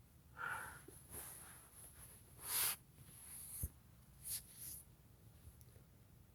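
Faint, short sniffs and breaths through the nose, a few scattered puffs with the loudest about two and a half seconds in.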